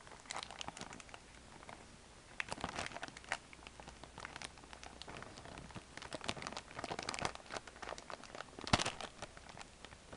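A clear plastic bag around a small plush toy crinkles irregularly as it is handled and pulled at to open it, with a louder crackle near the end.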